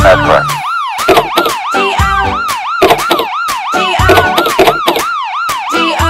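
Toy police pickup truck's electronic siren sounding, a quick up-and-down wail repeating about two and a half times a second, with scattered clicks underneath.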